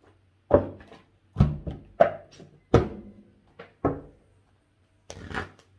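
A deck of oracle cards being handled and knocked on a table: a series of sharp thumps, six or so at uneven gaps of about half a second to a second, then a short scratchier burst near the end.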